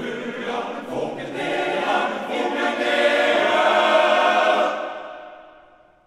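Men's choir singing a cappella, swelling into a loud held chord about three seconds in that dies away near the end.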